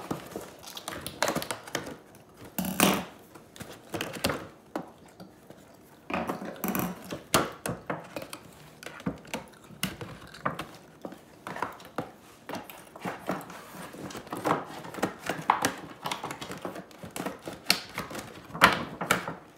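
Cardboard and plastic doll packaging being handled and pulled open: scattered crinkles, rustles, taps and clicks, with one sharper knock about three seconds in and denser handling in the second half.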